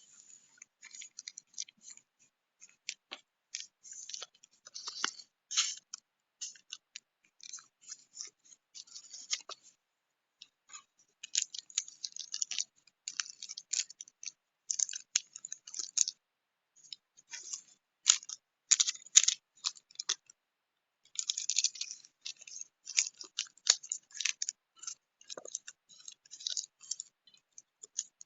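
Close handling of small objects and packaging: a run of crisp crinkles, scratches and light taps in clusters, with short pauses about ten, sixteen and twenty seconds in.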